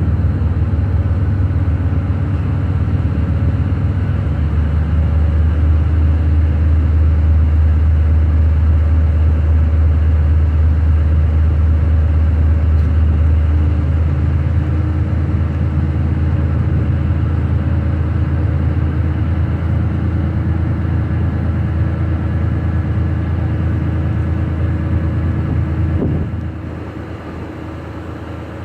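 Boat engine running with a steady low drone. Near the end it drops suddenly to a quieter, lighter hum, as if throttled back.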